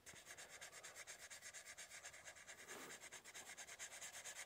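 Faint, rapid scratching of a dry chisel-tip Sharpie marker rubbed back and forth on paper, about seven or eight strokes a second.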